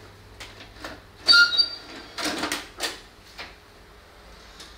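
Videotape deck's tape transport mechanism working: a run of mechanical clicks and clunks, with a short squeak about a second in, the loudest moment.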